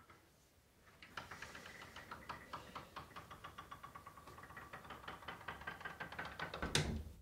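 A fast run of sharp knocks, several a second, starting about a second in and growing louder, ending in one loud thump near the end.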